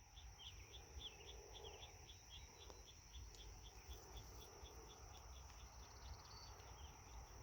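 Faint outdoor insect chorus: a steady high-pitched hum with a regular chirping about four times a second, a few short bird calls in the first two seconds, and a low rumble of wind on the microphone.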